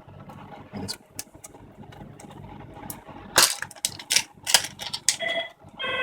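Scattered small clicks and taps of a wireless card and the open mini PC's parts being handled, with a louder run of clicks a little past halfway. Near the end a short pitched tone starts.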